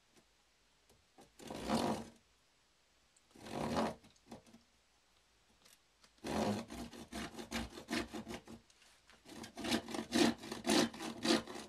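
Ordinary wood hand saw cutting square white plastic downpipe: two slow rasping strokes, a pause, then a quick run of strokes from about six seconds in, about three a second.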